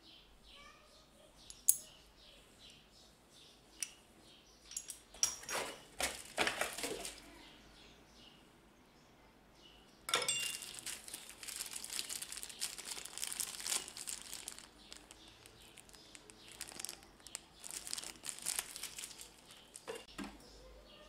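Packaging being handled and unwrapped: scattered clicks and knocks, then from about halfway a near-continuous crinkling rustle of wrapping.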